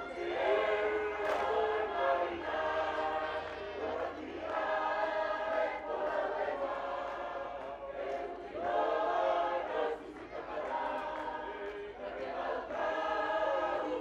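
Large mixed choir of Tongan students singing a lakalaka, the sung poetry that accompanies this Tongan group dance, without instruments. The singing comes in repeated phrases of one to two seconds with short breaks between them.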